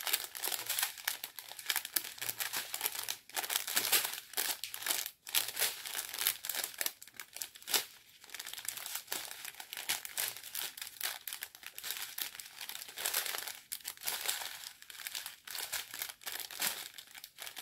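Small clear plastic bags of round diamond-painting drills crinkling as they are handled and turned over one after another: an irregular run of crackles with sharp spikes.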